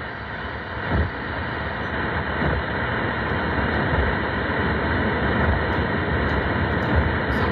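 Weather radio receiver hissing with steady static, no voice audible through the noise: the broadcast signal is fading out partway through a warning.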